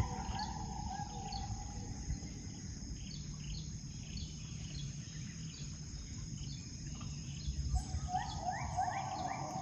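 Müller's gibbons singing to their group. A held whooping note fades out over the first two seconds, then a run of rising, stepped notes comes near the end, over a steady high-pitched insect drone.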